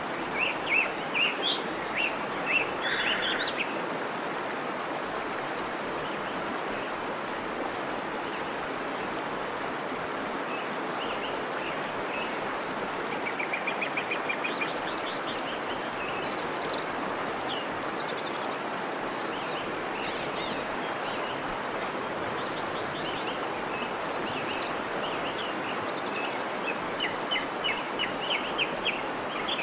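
Steady rush of a waterfall with songbirds chirping over it. The chirps come in clusters near the start and toward the end, with a quick trill about halfway through.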